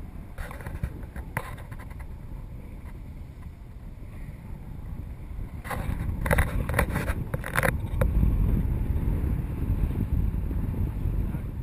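Wind rushing over the microphone during paragliding flight: a low rumble that grows louder about six seconds in, with a short cluster of sharp clicks and rustles around then.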